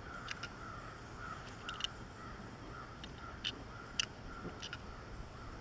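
Faint, scattered clicks and ticks of a small diecast metal toy car being turned over in the fingers, with a faint call recurring in the background.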